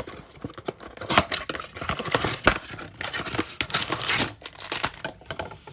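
Trading-card packaging being handled and opened: a run of tearing, crinkling and scraping sounds with sharp clicks, the clearest about a second in and again near the middle.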